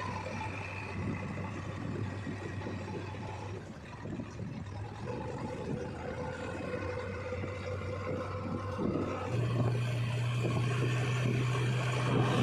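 A heavy diesel engine running steadily under work, its pitch stepping up and getting louder about nine seconds in as it is revved.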